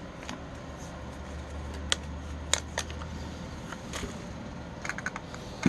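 Scattered light clicks and rustles of small plastic tap lights and their peel-off adhesive backing being handled, a few clicks about two seconds in and a short cluster near the end, over a low steady hum.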